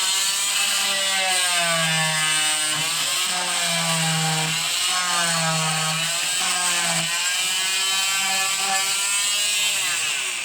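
Hyper Tough oscillating multi-tool buzzing as its blade cuts wooden plugs off flush with the surface. The pitch dips and recovers again and again as the blade bites into each plug, and the tool winds down near the end.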